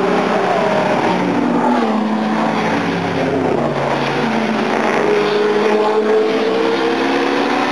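Classic racing cars' engines accelerating past one after another on a street circuit. The engine notes rise and fall as each car passes and changes speed, and a rising note climbs toward the end.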